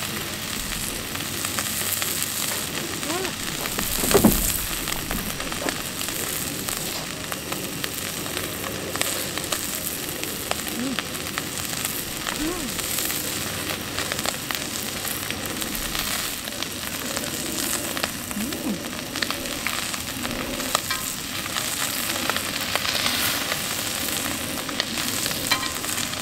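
Thin slices of Korean beef rib meat sizzling and crackling steadily on a hot griddle over a gas burner, with small pops throughout. There is a single louder knock about four seconds in.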